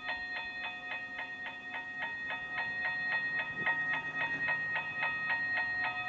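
Toy railroad crossing gate's electronic warning bell ringing rapidly and evenly, about five dings a second.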